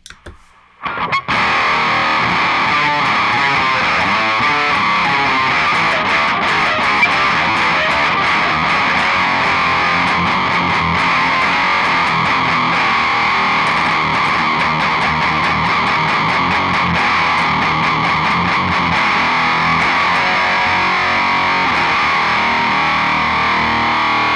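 Electric guitar played through a DAPHON Heavy Metal E20MT, an HM2-clone distortion pedal, with every control maxed: a dense, buzzing "chainsaw" distortion riff. It starts about a second in and runs at a steady loudness.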